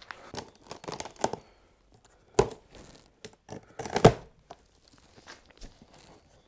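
A large cardboard shipping box being opened: packing tape tearing and cardboard crackling and scraping in short bursts, with a sharp loud rip about two and a half seconds in and the loudest tearing burst around four seconds.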